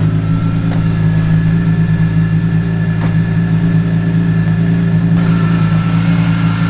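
BMW E46 M3's S54 straight-six idling steadily, an even, unchanging hum, on a car with about 260,000 km.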